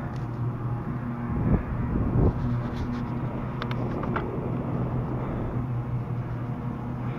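Wind rushing over the microphone of a camera on a moving bicycle, under a steady low drone. It swells louder twice, about one and a half and two seconds in, with a few faint ticks a little later.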